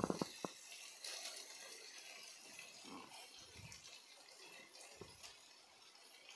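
Faint, steady sizzling hiss of sautéed vegetables and sauces frying in a non-stick pan, with a few soft thuds as cooked rice is tipped in partway through.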